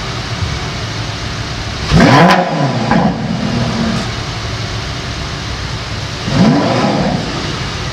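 The Lamborghini Gallardo LP570-4 Performante's 5.2-litre V10 is idling and is blipped twice: once about two seconds in and again about six and a half seconds in. Each time the revs rise sharply and fall back to idle within about half a second.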